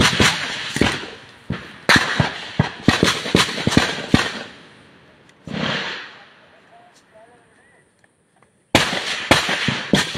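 Rifle gunfire in rapid bursts, several shots close together. The firing slackens about four seconds in, goes nearly quiet, then starts again with another burst near the end.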